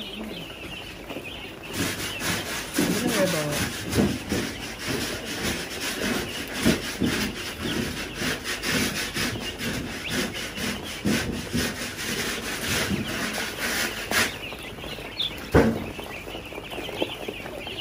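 Chickens pecking and scratching at feed: a dense, rapid scratching and tapping that starts about two seconds in and stops abruptly near the end, followed by a single sharp knock.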